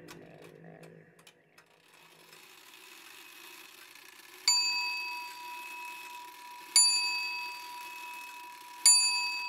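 Three bright bell-like dings about two seconds apart, each struck sharply and left ringing with a lingering high, clear tone. A faint tail of music fades out just before them.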